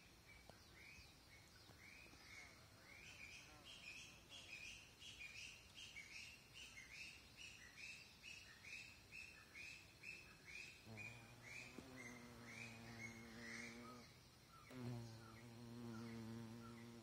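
A fly's wings buzzing in a steady, low hum, in two spells of about three seconds each in the second half. Behind it, short repeated chirps come about twice a second.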